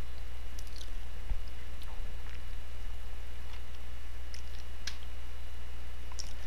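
A low, steady hum with a few faint, scattered clicks over it.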